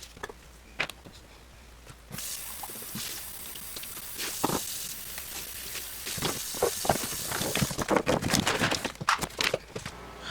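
Small sharp clicks and taps, as of cardboard jigsaw puzzle pieces being handled and pressed into place on a tabletop, with a steady hiss from about two seconds in until nearly eight seconds in.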